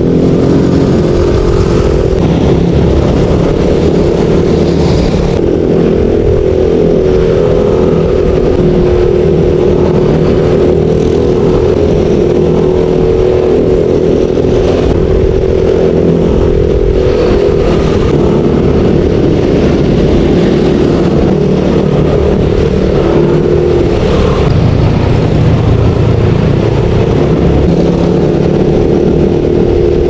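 Yamaha NMAX 155 scooter's single-cylinder engine running steadily at cruising speed through its stock exhaust, its note wavering slightly up and down with the throttle.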